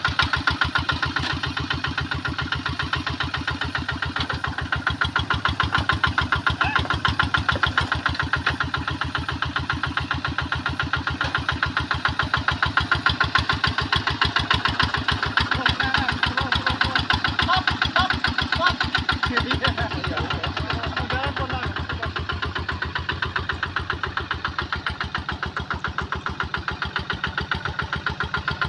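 Combine harvester's engine running steadily with an even, rapid pulse.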